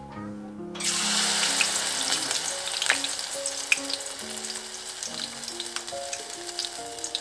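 Batter-coated shepherd's purse frying in hot oil in a stainless steel pot: a sizzle starts about a second in, loudest at first and then settling, with scattered sharp crackles and pops as the battered greens hit the oil.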